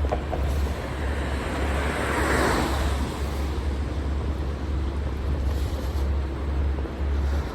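Wind rumbling on the microphone during a bike ride, with road traffic; one vehicle passes close, swelling and fading about two seconds in.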